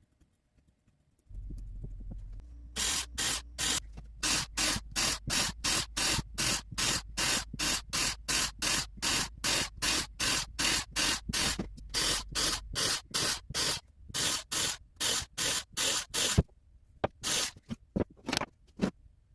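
Rhythmic strokes of a hand tool working cottonwood, about two to three a second, each a short rasping hiss, with a low steady hum beneath for most of the run. The strokes thin out to a few scattered ones near the end.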